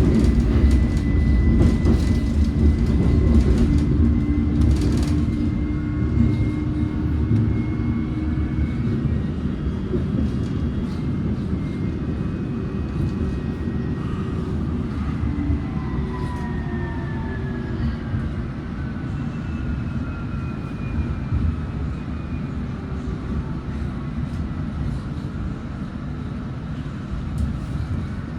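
Metropolitan line train running on the rails, a heavy rumble with the whine of its traction motors. About halfway through the whine begins to fall in pitch as the train slows.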